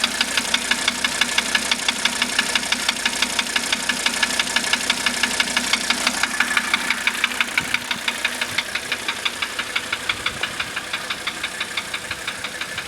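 Mercedes-Benz 300D five-cylinder diesel engine idling with a rapid, even knock, about seven a second. The knock is still there after the valves were adjusted, and its cause is unknown to the owner.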